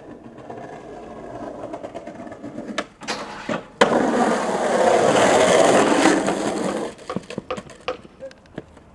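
Skateboard wheels rolling over rough concrete, a few clacks, then a hard clack about four seconds in and a loud scrape of the board for about three seconds. Scattered light clicks follow near the end.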